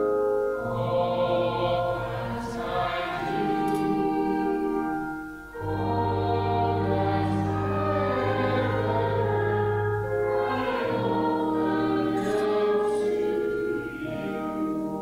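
Hymn sung by a group of voices over steady held chords, in phrases with a short break about five and a half seconds in.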